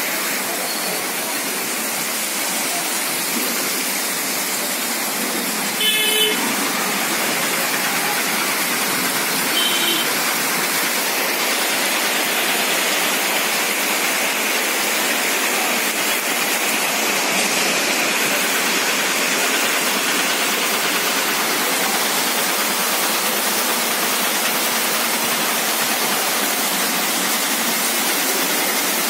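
Heavy rain falling, a dense steady hiss. About six seconds in a vehicle horn gives a short beep, and a fainter short high toot follows around ten seconds in.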